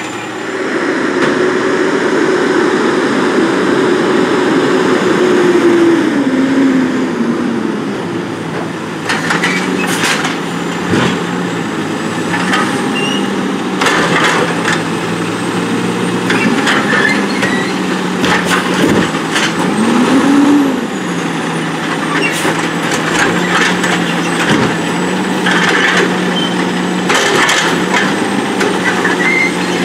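Heil Durapack 7000 automated side-loader garbage truck working its gripper arm: the engine and hydraulics run up under load, dropping in pitch about seven seconds in and rising briefly again later, as a wheeled cart is lifted, shaken out over the hopper and set back down. Repeated knocks and clatter come from the cart banging and its trash falling in.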